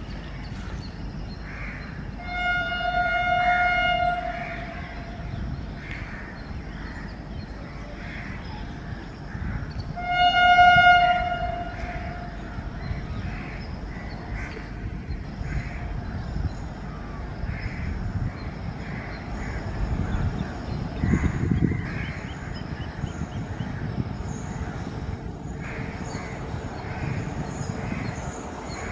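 WAP 7 electric locomotive's horn sounding twice, each blast about two seconds long and the second louder, over the steady rumble of an approaching passenger train.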